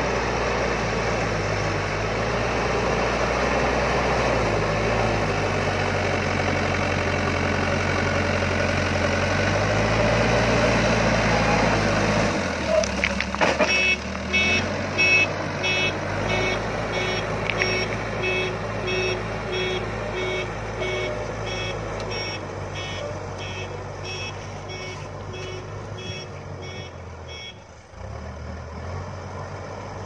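TATA backhoe loader's diesel engine running steadily under load while working earth with its front bucket. About halfway through there are a few knocks, then a reversing alarm beeps repeatedly over the engine until shortly before the end.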